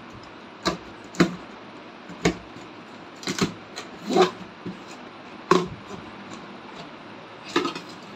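Corrugated cardboard shipping box being torn open along its perforated tear strip: a string of short, sharp rips and knocks, about a second apart.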